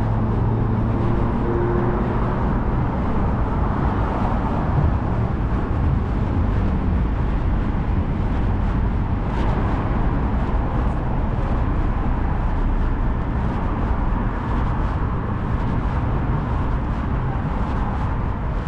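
Street traffic noise: motor vehicles running and passing, a steady rumble of road noise.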